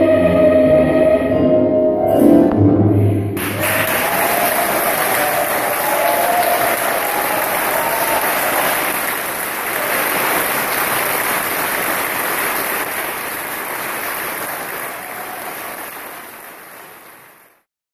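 A children's choir finishes singing a held final chord about three seconds in, and the audience breaks into applause that slowly fades away near the end.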